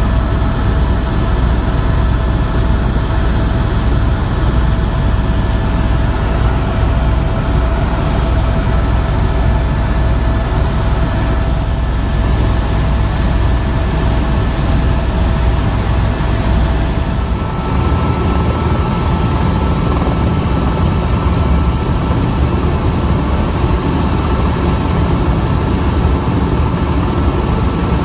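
Tour helicopter in flight, its turbine and rotor making a steady loud drone with a steady whine over it. About two-thirds of the way through, the sound changes abruptly to a different steady helicopter drone with a higher whine.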